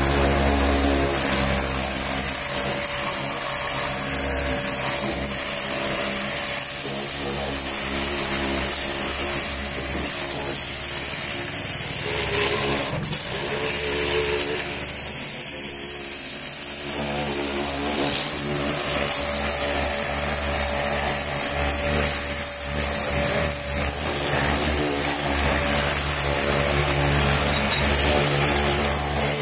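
Pressure washer running steadily: the motor and pump hum under the hiss of the high-pressure water jet spraying onto a car's wheel arch, tyre and side step. One sharp click near the middle.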